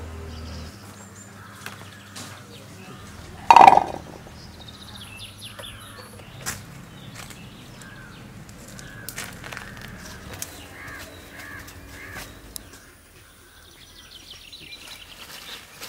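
Outdoor garden ambience with faint bird chirps and small scattered ticks, and one loud, short crow caw about three and a half seconds in.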